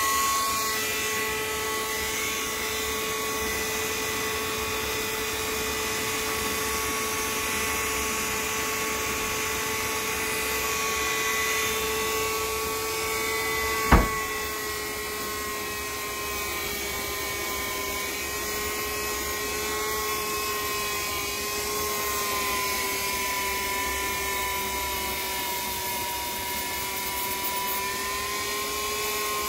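Small high-speed power tool motor running steadily with a whine, its pitch sagging slightly now and then in the second half. A single sharp click about halfway through.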